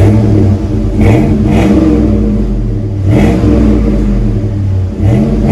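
5.3-litre V8 running through a single-exit exhaust with a Magnaflow muffler, loud and deep-toned, revved from the tip with the pitch climbing about a second in, again about three seconds in, and near the end.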